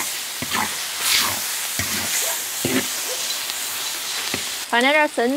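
Rice noodles, pork shreds and vegetables stir-frying in a hot iron wok: a steady sizzle with a scrape or toss of the spatula and chopsticks against the wok about every three-quarters of a second. A voice starts near the end.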